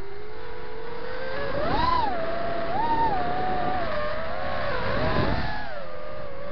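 FPV quadcopter's brushless motors and propellers whining in flight, the pitch rising and falling with the throttle: it climbs sharply about two seconds in, again near three seconds, and dips with a rush of noise around five seconds.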